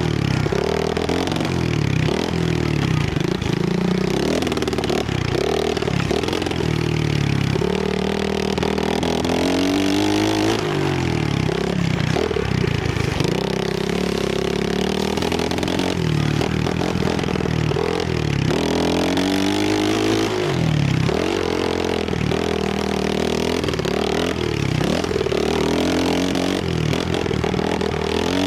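Trailmaster 125cc pit bike's single-cylinder four-stroke engine revving up and falling back again and again under throttle and gear changes while ridden off-road, its pitch repeatedly climbing and then dropping.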